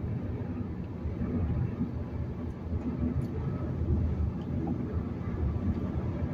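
Steady low rumble of a car travelling at highway speed, with road and tyre noise, heard from inside the cabin.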